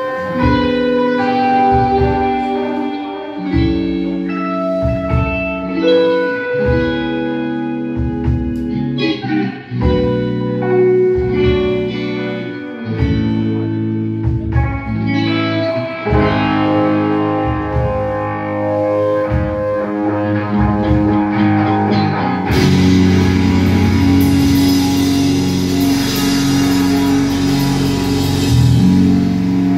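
Live instrumental rock band: electric guitars play interlocking melodic lines over bass. About two-thirds of the way in, cymbals and heavier drumming join and the full band plays louder.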